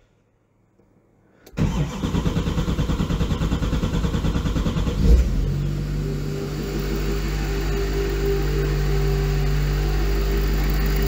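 LML Duramax 6.6-litre V8 turbodiesel cranking over on the starter in an even rhythm for about three and a half seconds, then catching with a loud burst about five seconds in and settling into a steady idle.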